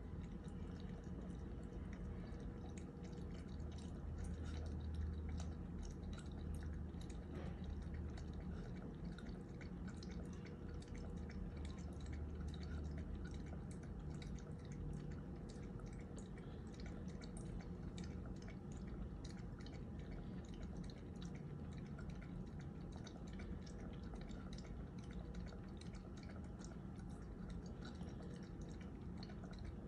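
Small dog lapping water from a bowl, a long run of quick, irregular wet tongue clicks. It is the heavy thirst of a dog on diuretics for congestive heart failure.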